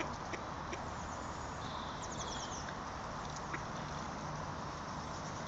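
Steady outdoor background noise, with a brief high twittering of a small bird about two seconds in and a few faint clicks.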